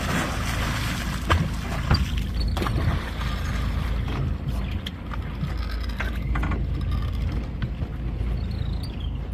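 A hooked tuna thrashing and splashing at the surface beside the boat, with several sharp splashes in the first three seconds, over a steady low rumble from the boat and the wind. The splashing dies away after about three seconds, leaving the rumble.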